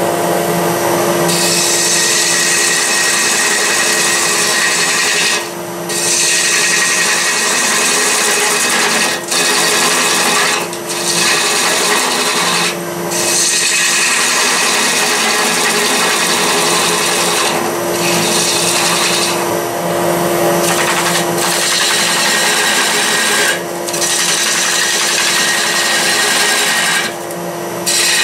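A walnut log spinning on a wood lathe being cut with a hand-held turning tool: a continuous scraping hiss of shavings over the lathe's steady motor hum. It breaks off briefly about eight times as the tool comes off the wood.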